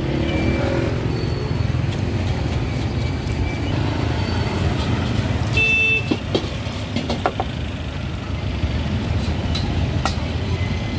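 Street traffic: a steady low rumble of motor vehicles going by, with scattered clicks and clatter and a short high beep a little past halfway through.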